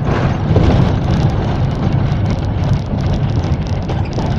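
Steady cabin noise of a moving minibus: engine and road noise with a rumble, heard from inside.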